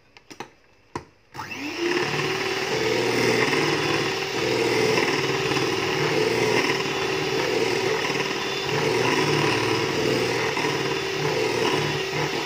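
A few light clicks, then an electric hand mixer switching on about a second and a half in, its motor whining up to speed and running steadily as its beaters whip cream in a bowl. The cream is nearly whipped to stiff peaks.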